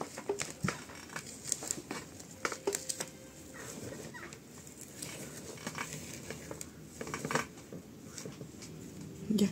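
Hands pressing and scraping potting mix with perlite in a plastic tub: scattered gritty rustles and soft clicks. There is a brief louder low sound near the end.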